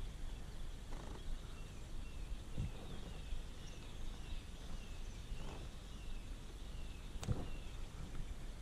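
A bird calling outdoors: a run of short, high, falling notes repeated about twice a second, over quiet lake ambience. About seven seconds in, a single sharp knock.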